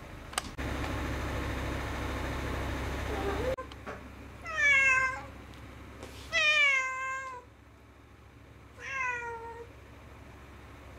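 Domestic cat meowing three times, each a drawn-out call of about a second that falls in pitch. Before the meows, a steady noisy rumble lasts about three seconds and stops abruptly.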